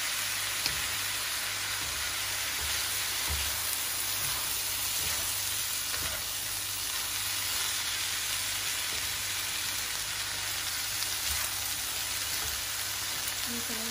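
Raw rice grains frying in a wok, stirred with a spatula: a steady sizzle with the rustle of grains being tossed, and a few soft knocks of the spatula against the wok.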